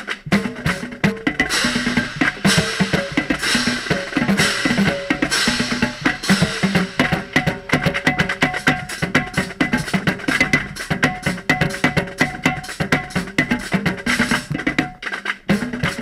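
Marching drumline playing a cadence, led close up by rapid sticking across a set of five tenor drums (quints) with Evans heads, pitched drum strokes over the rest of the line. The heads are wet from rain and not resonating as fully as usual. There is a short break in the low drums near the end.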